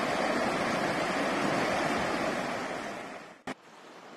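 A river running over rocks in a steady rushing hiss. About three seconds in it fades, a sharp click sounds, and it goes on more quietly after that.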